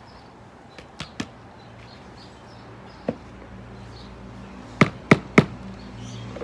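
Sharp taps of a metal garden trowel knocking against a pot while potting soil is scooped: a pair about a second in, a single one near three seconds, and three quick, louder knocks about five seconds in.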